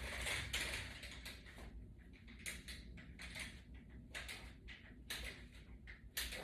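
Faint, irregular clicks and creaks from a latch bar and its resistance band as the band is pulled through curls.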